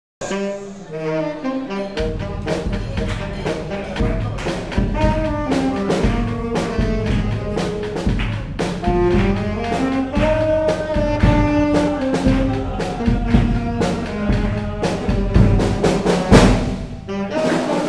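Charanga brass band playing an upbeat dance tune, a saxophone and brass carrying the melody. Drums and bass join about two seconds in and keep a steady beat.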